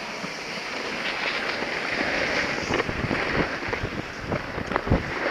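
Wind rushing over the microphone and the scraping hiss of sliding down snow, growing louder about a second in. From about the halfway point there are scattered knocks and clatters, the sharpest near the end.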